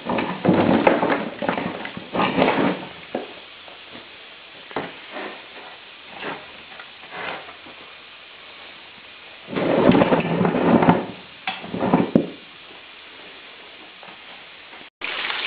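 A homemade wire-mesh drum fish scaler being turned by hand and emptied, the fish clattering and rattling against the mesh and out into a plastic tub. The noise comes in two main bursts, at the start and about ten seconds in, with lighter knocks between.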